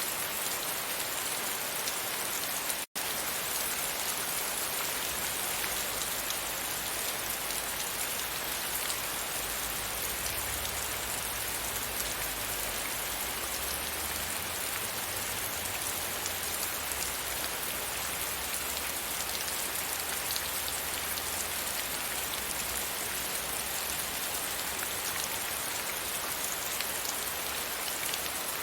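Steady rain falling against a window pane, an even hiss of drops, with a faint low rumble under it through the middle. The sound cuts out for a split second about three seconds in.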